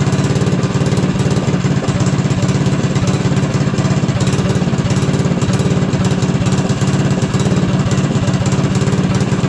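Small go-kart engine running steadily at idle with no throttle, a loud, even chugging.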